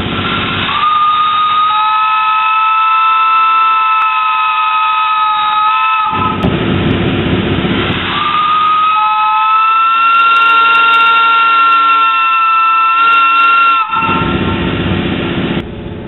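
2.5-inch brass three-chime Buckeye steam whistle blown on compressed air, sounding two long chords of about five seconds each. Each chord slides up slightly in pitch as it opens. A loud rush of air is heard between the blasts and after them.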